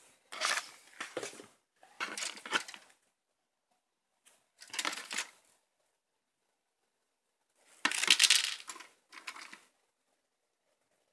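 Plastic model-kit parts runners and the paper instruction sheet being handled over the open kit box: five short bursts of rustling and light plastic clatter, the loudest about eight seconds in.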